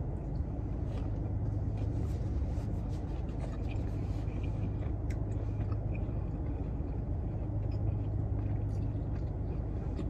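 Steady low hum of a car cabin, with faint mouth clicks and smacks of someone chewing a burrito.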